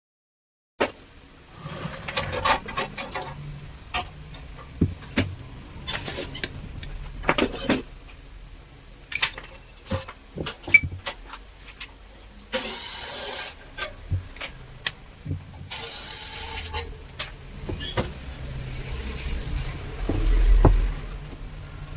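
Workshop handling sounds from pressure-washer repair: a string of sharp clicks and knocks, with two short hissing bursts a little past the middle and a low thud near the end.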